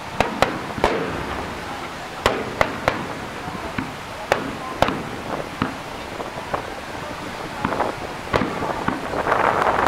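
Aerial fireworks shells bursting overhead: a string of sharp bangs at irregular intervals, several close together in the first few seconds, with a denser swell of noise near the end.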